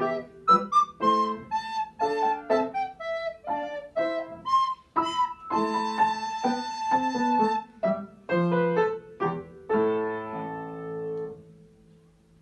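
Recorder playing a melody with Yamaha upright piano accompaniment. The piece closes on a held final chord about ten seconds in that fades out near the end.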